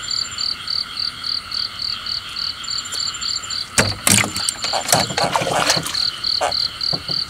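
Night chorus of frogs and insects, one caller pulsing evenly about four times a second, with a higher trill coming and going. A few sharp knocks and some clatter come about four and five seconds in.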